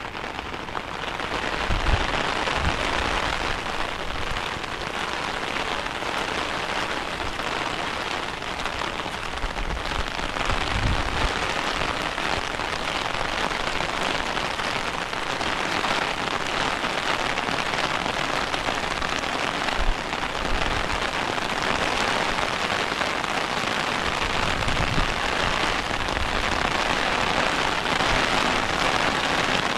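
Heavy rain falling steadily, a dense even hiss of drops that swells in the first two seconds, with a few brief low thuds now and then.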